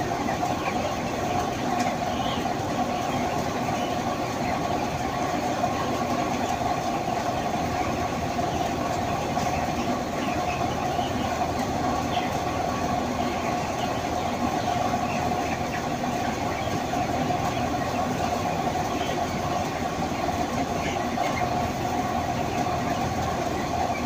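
A broiler shed full of chickens: many small calls from the flock throughout, over a steady mechanical hum.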